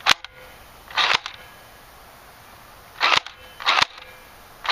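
M85P airsoft rifle firing single shots on semi-auto: four sharp shots spaced irregularly, one to two seconds apart.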